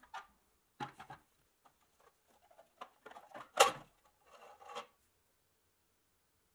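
Rusty pressed-steel 1960s Nylint Econoline toy truck handled on a wooden workbench: scattered scrapes and knocks of metal on wood, the loudest a sharp knock about three and a half seconds in. Near the end comes a short scraping as a rubber wheel is worked off its rusty axle.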